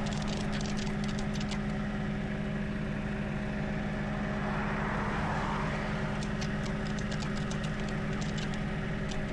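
Tow truck engine idling steadily, with a vehicle passing by in the middle. Quick runs of sharp clicks come near the start and again in the second half.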